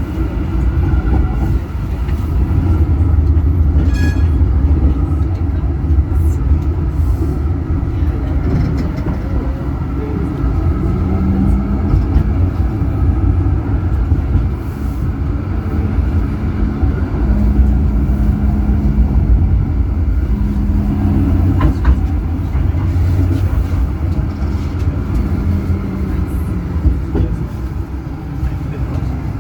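Zürich city tram running along its line: a steady low rumble of steel wheels on the rails, with a faint motor hum that comes and goes from about ten seconds in, and occasional clicks.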